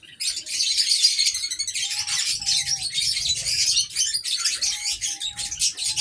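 Many caged birds chirping and twittering densely and continuously in an aviary. Several short, even-pitched coos from diamond doves come twice in a row about two seconds in, then again as a run of four near the end.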